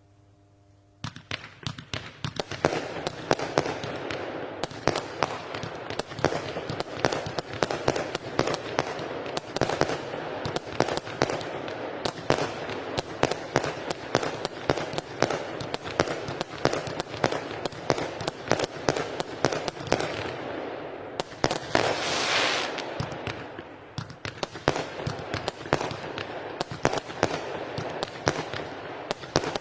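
Weco 'Time Machine' firework battery firing, starting about a second in: a dense, rapid run of bangs, with a hissing swell lasting about two seconds some three-quarters of the way through.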